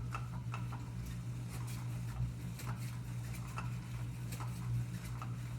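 Scattered light ticks and patters of cats batting at a toy, over a steady low hum.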